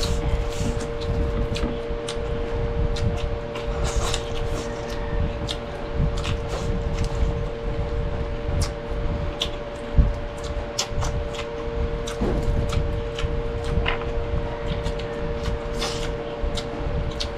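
Close-miked eating sounds: chewing and lip smacking with frequent small mouth clicks, over a steady hum.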